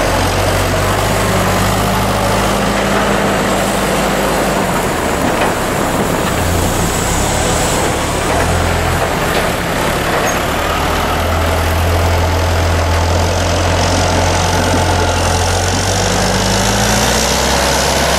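John Deere 6410 tractor's diesel engine running while it backs a loaded forage wagon, its engine speed shifting up and down several times and rising near the end.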